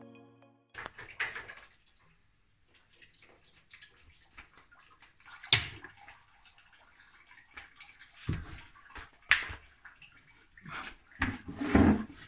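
Old coolant being drained from the radiator, trickling and splashing into a plastic catch tub. A few scattered clicks and two sharp knocks, about five and nine seconds in, are louder than the liquid.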